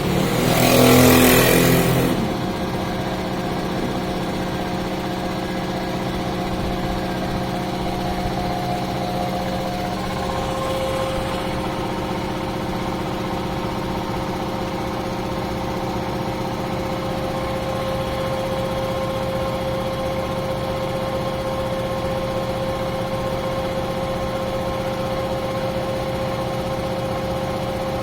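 JSI air compressor running steadily with an even mechanical hum. A short, loud rush of hissing noise comes in the first two seconds, and the hum's tone shifts slightly about ten seconds in.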